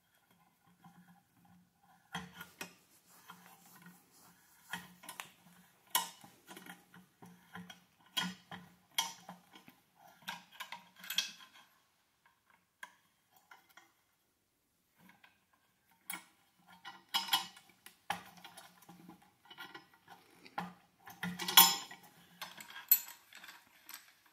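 Metallic clinking and rattling of a ball joint press's sliding T-handle and screw as it is turned by hand, pressing a new bearing into a Honda 400EX swingarm. The clicks come irregularly in two spells with a pause of a few seconds in the middle, the sharpest near the end.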